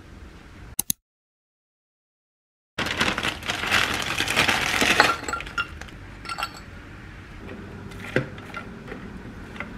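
Two quick clicks, a cut to silence, then a plastic bag crinkling loudly for about two seconds as it is shaken out over a ceramic dish. After that comes softer rustling of shredded cabbage being dropped into a wooden bowl, with a few light clicks.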